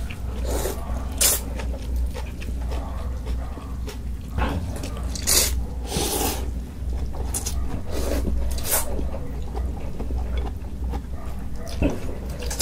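Thin noodles in broth being slurped, several short hissy slurps a few seconds apart with quieter chewing and mouth sounds between, over a low steady hum.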